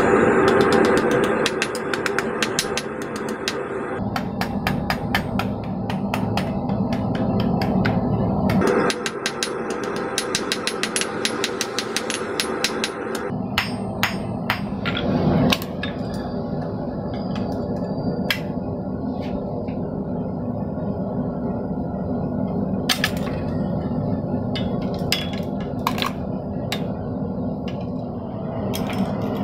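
Hand hammer striking a red-hot steel bar on a steel anvil: quick runs of blows for about the first dozen seconds, then slower, spaced single strikes.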